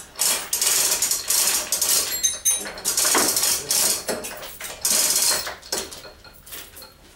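An engine hoist being worked by hand, with rapid repeated mechanical strokes, a few a second, that die away near the end.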